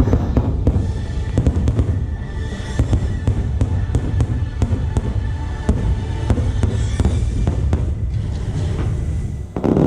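Fireworks bursting in rapid succession, a dense run of cracks and booms over a low rumble, with the show's music playing along. Near the end there is a brief lull, then a new swell of bursts.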